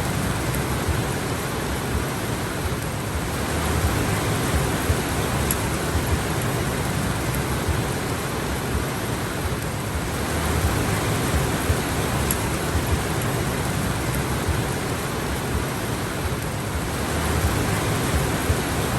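Steady rain falling: an even rushing hiss with a dense low patter, swelling and easing slightly every six or seven seconds.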